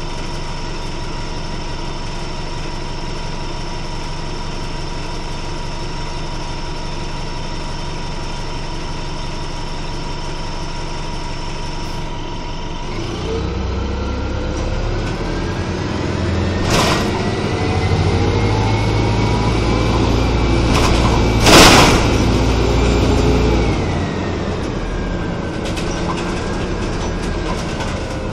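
A 1996 Nova Bus RTS transit bus heard from on board: the engine idles steadily, then about halfway through the bus pulls away and the engine and drivetrain whine rise in pitch as it accelerates, easing off near the end. A few sharp knocks and rattles come while it is moving; the loudest is about two-thirds of the way in.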